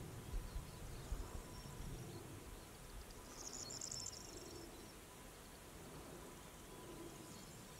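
Faint outdoor ambience of open countryside, with a few low knocks near the start and a brief high-pitched rapid trill about halfway through.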